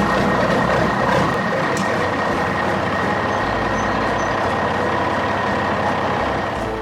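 A heavy construction machine's engine running steadily, a dense noisy rumble with one steady high whine over it.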